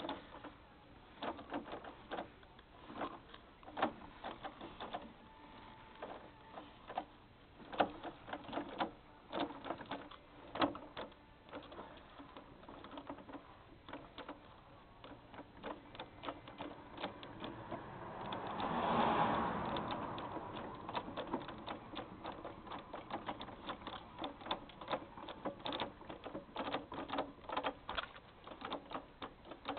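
Renault 11 manual gearbox knocking: a stream of rapid, irregular clicks and knocks. About two-thirds of the way through, a louder rushing noise swells and then fades under them.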